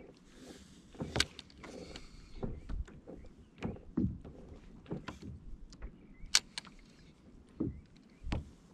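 Scattered, irregular light knocks and clicks of fishing tackle being handled aboard a kayak.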